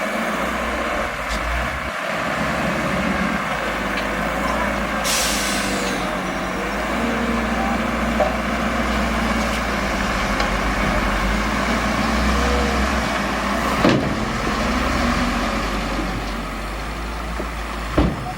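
Heavy diesel earthmoving machinery running steadily. There is a short hiss of air about five seconds in, and two sharp knocks, one a little after the middle and one near the end.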